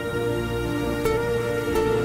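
Background music: a soft instrumental of held notes over a steady low bass note, with new notes coming in about a second in and again near the end.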